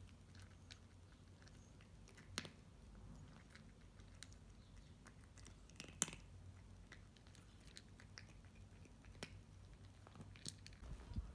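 A long-haired ginger cat crunching dry kibble from a metal bowl: faint, irregular chewing clicks, with two sharper clicks about two and a half and six seconds in.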